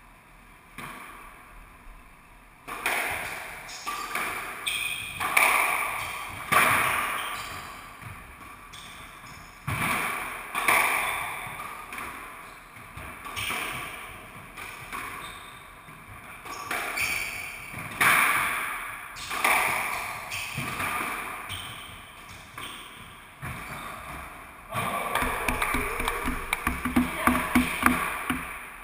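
Squash rally: the rubber ball cracks off rackets and the court walls about once a second or so, each hit ringing in the walled court, with a quicker run of sharp hits near the end.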